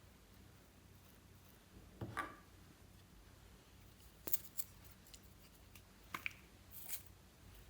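Scattered small clicks and soft scrapes from makeup and slime-making tools being handled: a rustle about two seconds in, a few sharp clicks around the middle and again later, and a brief swish near the end.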